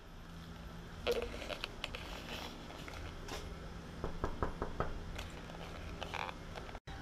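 Small clicks and knocks of a door being unlatched and pushed open by hand, with a quick run of clicks about four seconds in, over a low steady hum.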